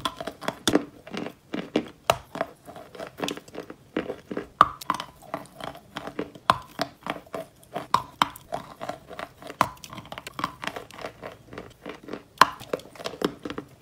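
A person biting and chewing a block of crunchy chalk close to the microphone. It makes a quick, irregular run of sharp, dry crunches and crackles as the chalk breaks up between the teeth.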